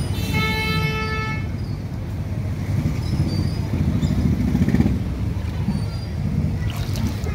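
A vehicle horn sounds once near the start, a single steady tone lasting about a second, over a steady low rumble of motor traffic.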